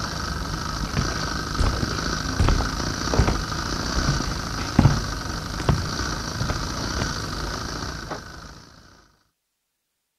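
Film projector running: a steady whirring hum with scattered irregular pops and crackles, fading out about nine seconds in.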